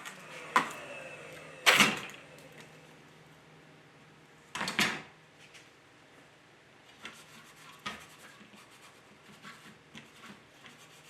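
Scroll saw parts being handled on a workbench: a few sharp knocks, the loudest about two seconds in and another about five seconds in, then lighter clicks and taps, over a faint low steady hum.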